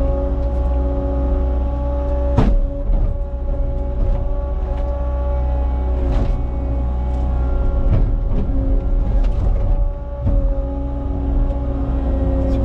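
Cat 279 compact track loader's diesel engine running steadily with a constant whine, with one sharp knock about two and a half seconds in and a few lighter clunks later.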